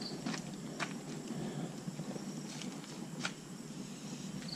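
Small wood fire burning low, giving a few scattered sharp crackles over a steady low rush.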